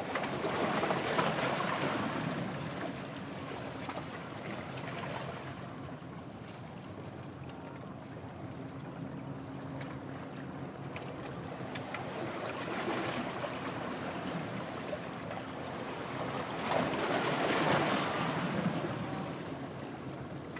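Sea surf washing in with wind on the microphone, swelling louder about a second in and again near the end.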